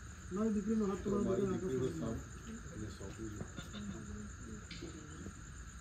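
Crickets trilling in a steady, high, finely pulsing chirr, with a voice talking briefly over the first two seconds.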